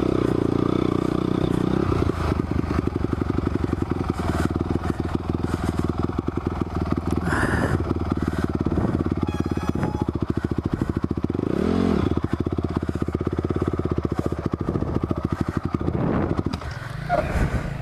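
Honda CRF250R dirt bike's single-cylinder four-stroke engine running under throttle on a motocross track, its pitch rising and falling as the rider works the throttle, with one clear rev up and back down about twelve seconds in. The engine sound falls away near the end.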